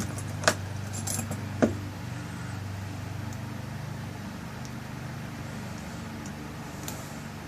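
Small metal clicks and taps of a lock cylinder's parts as its tail piece is screwed back on: a few sharp clicks in the first two seconds, then one faint click near the end, over a steady low hum.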